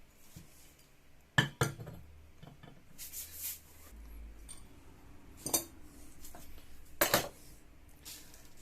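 Sharp metallic knocks and clinks of a Honda PCX 150's secondary pulley being tapped while its inner bearing is worked out: a close pair of hits about a second and a half in, another near five and a half seconds, and a pair near seven.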